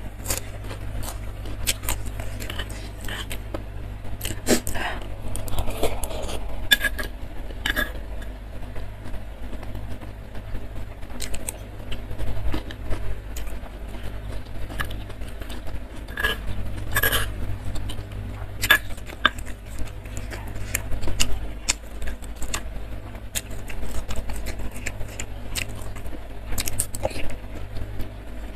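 Metal spoon scraping and clinking against a stone mortar bowl while scooping pieces of fried tofu in sauce: irregular sharp clicks and scrapes, some louder than others, over a steady low hum.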